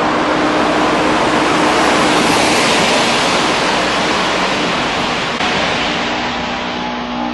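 A car driving through a road tunnel: a long swelling and fading rush of tyre and engine noise, loudest about two to three seconds in. Under it a slide didgeridoo drones steadily, coming through more clearly again near the end.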